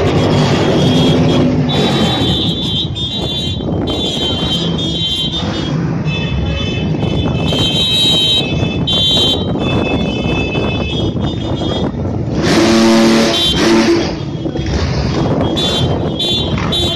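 Cars and motorcycles driving slowly past in a procession, engines running, with high-pitched horns honking on and off. A louder, lower horn blast sounds for about a second and a half in the second half, and motorcycle engines join near the end.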